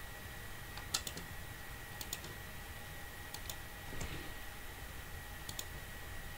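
A few separate computer keyboard keystrokes and clicks, spaced irregularly about a second apart, over a faint steady high-pitched whine.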